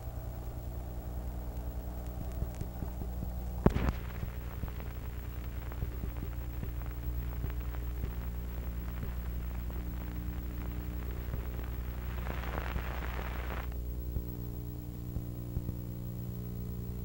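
Steady electrical hum with faint crackle, as heard on a silent stretch of an old film-to-tape transfer. A sharp click comes about four seconds in, and a short burst of hiss near the end.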